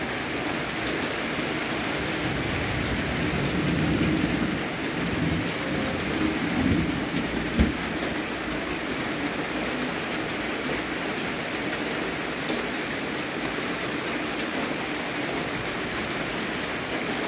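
A steady hiss of even noise, with low rumbling swells in the first half and a single thump about seven and a half seconds in.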